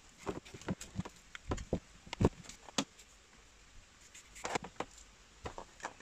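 Handling noise as a float switch's cable is threaded through its plastic counterweight: scattered light clicks and knocks at irregular intervals, the loudest a little past two seconds in.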